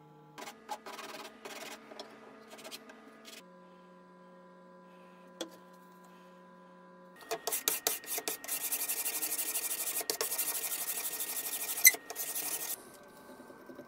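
A wooden knife blank being scraped and rubbed by hand with a small blade. There are a few short rubbing strokes in the first three seconds, then about five seconds of steady, louder scraping with a sharp click near the end.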